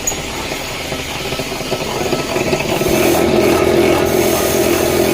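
B11 wire stripping machine running with a steady mechanical drone. About two and a half seconds in it grows louder and heavier as a 2.5 mm wire is fed through and stripped.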